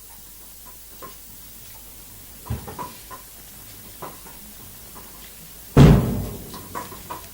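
Scattered light knocks and clicks over a quiet background, then one loud, dull thump about six seconds in that dies away quickly.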